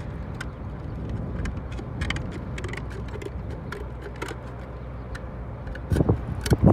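Wind rumbling on the microphone, with scattered light clicks and taps of slate tiles being handled. Louder knocks and clatter come in about six seconds in.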